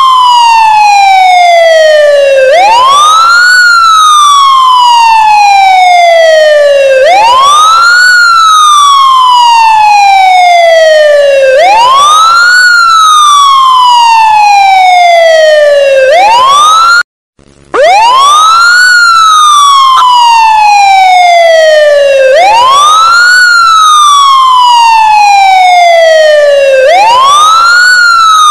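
Ambulance siren sounding a wail: each cycle rises quickly, then falls slowly, and repeats about every four and a half seconds. The sound cuts out for about half a second about seventeen seconds in, then the wail starts again.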